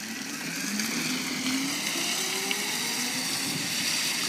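Go-kart's Etek electric motor, run at 36 volts, whining and rising slowly in pitch as the kart accelerates away, over a steady high hiss.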